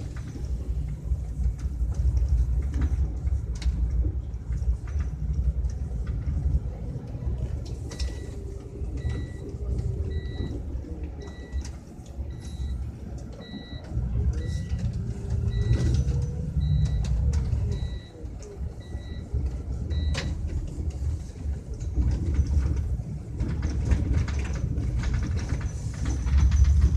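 Low running rumble of a moving vehicle heard from inside its cabin. A regular high electronic beep sounds over it, about once every three-quarters of a second, from about nine seconds in to about twenty seconds.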